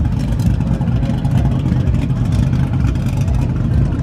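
Steady, loud low rumble of a pickup truck's engine running, with faint crowd chatter.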